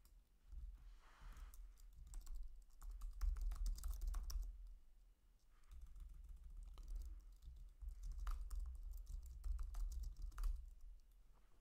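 Computer keyboard typing in bursts of keystrokes, with a short pause about five seconds in.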